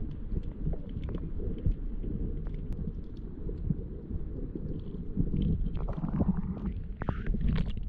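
Muffled low rumble of water sloshing and wind on a camera aboard a folding kayak under way, with a few brief higher splashes near the end.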